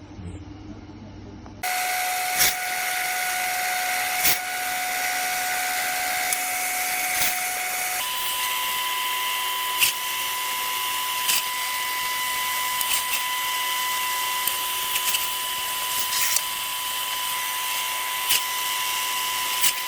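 Power tool motor running with a steady whine that starts abruptly about two seconds in. Its pitch steps up about eight seconds in, with light clicks every second or two.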